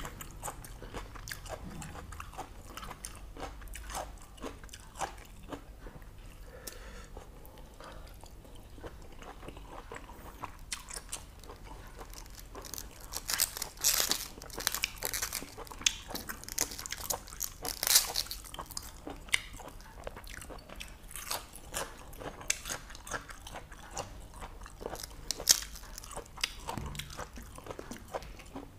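A person chewing and biting a mouthful of boiled intestines: irregular wet mouth clicks and crunches, louder in stretches about halfway through and again near the end.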